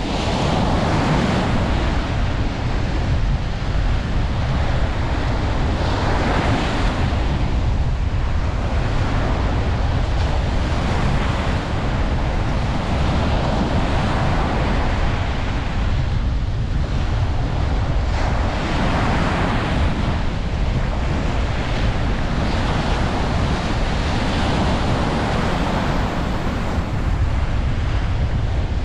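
Ocean waves breaking and washing on a beach, swelling and easing every few seconds over a steady low rumble, with wind buffeting the microphone.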